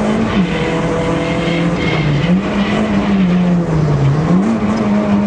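Rally car engine heard from inside the cabin, driven hard along the stage. The revs drop shortly after the start, climb back up, sag near four seconds and then jump up again.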